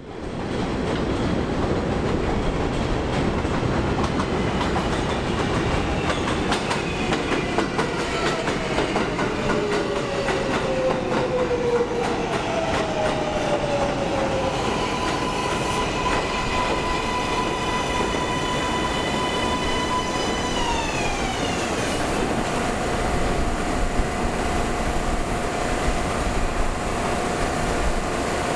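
New York City Subway train on an elevated track, its wheels rumbling and clacking over the rails under a high electric motor whine. The whine falls in pitch, holds steady, then steps down again about twenty seconds in.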